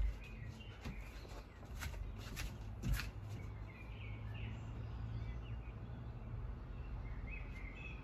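A few short knocks and rustles as the diamond-painting canvas is handled over the wooden deck, the last and loudest about three seconds in, then steady outdoor background noise with faint bird chirps.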